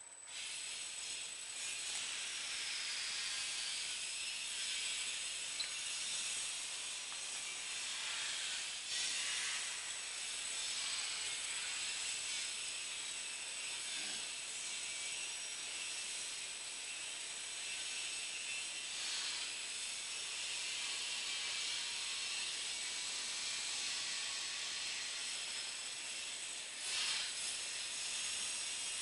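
Mouse-trap glue board making machine running, with cardboard sheets feeding along its conveyor: a steady hiss with a thin high whine, and a few brief louder rushes.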